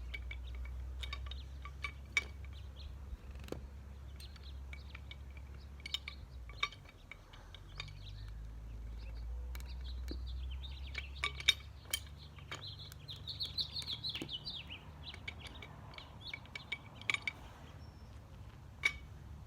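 A pipe wrench working a threaded PVC sprinkler fitting tighter, giving scattered sharp clicks and creaks as the joint nears full tightness, with birds chirping behind it.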